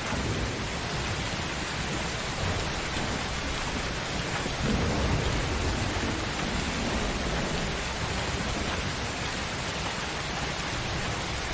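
Steady heavy rain falling, with low rolling thunder that swells shortly after the start and again, loudest, around the middle.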